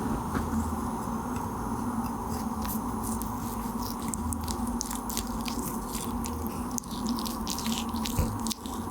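Home-made foley effect of a giraffe eating: continuous crunchy chewing and munching made of many small crackles, over a steady low hum, cutting off abruptly at the end.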